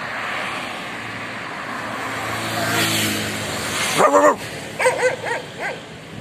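A car drives past, its tyre and engine noise swelling to a peak about three seconds in. A street dog then gives one loud bark about four seconds in, followed by four quicker, shorter barks.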